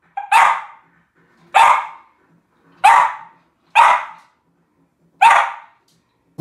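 West Highland White Terrier barking: five single sharp barks, spaced one to one and a half seconds apart.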